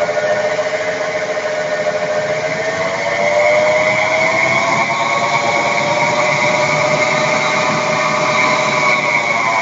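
Worn front wheel bearing on a 1994 Ford Taurus humming while the car is driven: a steady drone whose pitch rises a few seconds in and falls again near the end, with a steady higher whine above it.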